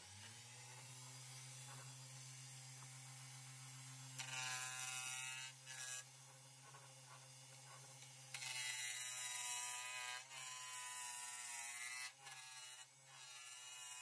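Wood lathe motor starting up and running with a steady hum, while a hand-held turning tool cuts a spinning jatoba blank. The cutting sounds as a loud, rough scraping hiss in two stretches, about four seconds in and again from about eight seconds in.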